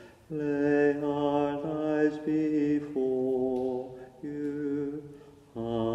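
A single voice singing a slow, chant-like hymn in long held notes, pausing briefly between phrases.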